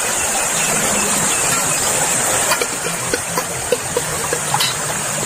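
A rocky stream running steadily over stones, with many small splashes and drips as a hand splashes in the water at the edge.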